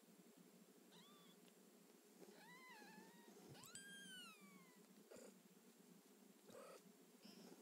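Kitten meowing faintly three times, high-pitched, the last call the longest and falling in pitch, followed by a few short soft noises.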